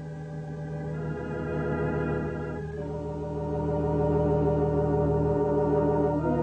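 Organ music: slow sustained chords, each held without fading, the chord changing about a second in, again near three seconds in, and once more just before the end.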